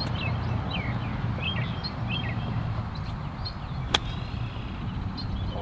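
Golf wedge striking the ball once about four seconds in: a single sharp click. Birds chirp throughout over a steady low background hum.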